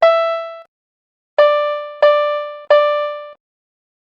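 Short pitched pop tones like a synthesized note: one at the start, then three slightly lower ones in quick succession about a second and a half in. Each starts sharply and fades within about half a second.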